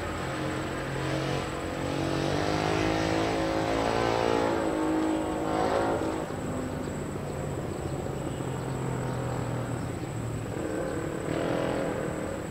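A motor engine running over a steady low hum, its note swelling and shifting in pitch between about two and six seconds in and again near the end.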